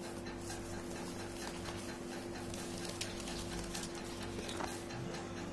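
Hands handling sheets of paper close to the microphone: faint scattered rustles and light taps over a steady low hum.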